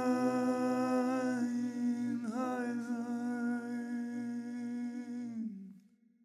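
A man's voice humming one long held closing note, with a brief dip in pitch about two seconds in, fading out near the end.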